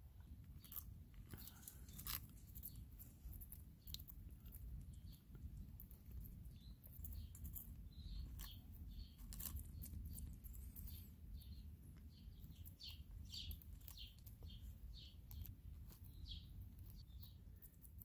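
Cockatiel eating seeds and chopped greens from a bowl: faint, irregular crunching and clicking as it cracks seeds and bites leaves.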